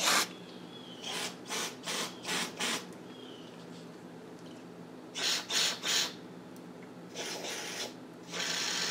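Aerosol can of carburetor cleaner sprayed in short bursts through a carburetor: a string of brief hisses in clusters, the longest near the end.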